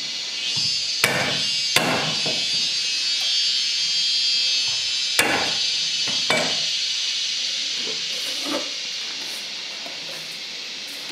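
Snails cooking in a steel stockpot with a steady sizzling hiss. A metal spatula knocks sharply against the pot four times over the first two-thirds, with a softer knock later.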